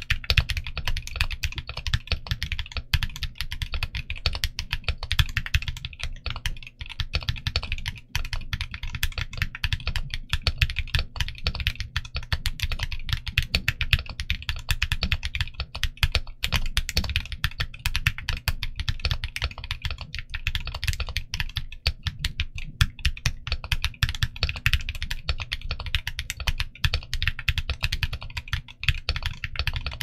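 Continuous fast typing on a TG67 mechanical keyboard with stock KineticLabs Husky linear switches and 1.6 mm thick Cherry-profile dye-sub PBT keycaps: a dense, unbroken stream of keystrokes and bottom-outs.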